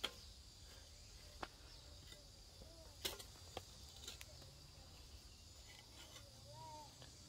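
Near silence, broken by about five faint sharp clicks or knocks (the loudest right at the start and about three seconds in), over a faint steady high whine.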